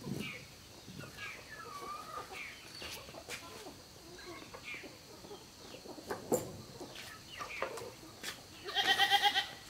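Farmyard animals calling: scattered short chirps and clucks, then one loud quavering call lasting about a second near the end.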